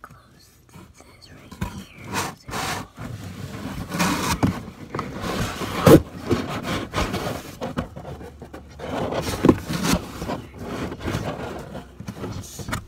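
Cardboard box flaps scraping and rubbing in irregular strokes as someone pushes and shifts against them from inside the box, with a louder thump about six seconds in.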